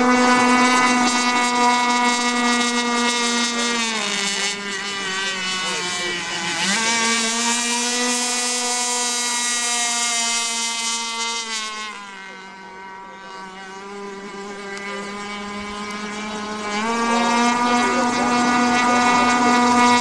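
RC speedboat's motor running at high speed as a steady high whine. The pitch drops about four seconds in and climbs back a few seconds later, then drops again about twelve seconds in, going quieter, and rises back near the end.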